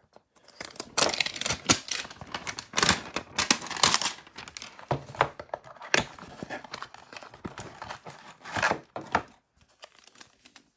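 Cardboard Topps Chrome hanger boxes being torn open by hand, and the foil-wrapped card packs inside being pulled out and handled: irregular tearing, rustling and crinkling with sharp clicks, quieter near the end.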